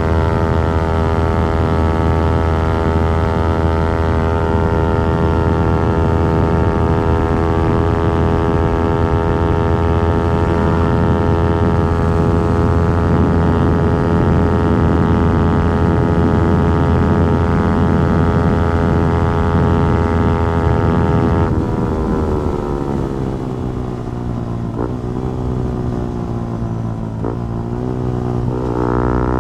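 Yamaha R15 V4's single-cylinder engine held at a steady high pitch under throttle. About 21 seconds in, the throttle closes and the note falls away as the bike slows, with a few short blips of rising pitch near the end.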